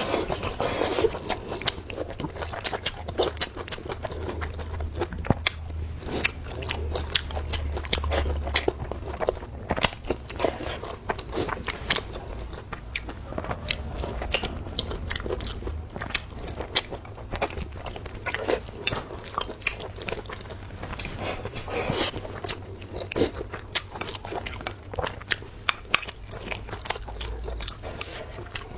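A person chewing and biting food, with many short crunches and mouth clicks throughout. A low hum swells from about four to nine seconds in.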